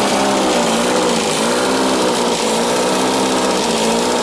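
Austin 1300 Countryman's four-cylinder engine running, its pitch rising and falling as it is revved gently.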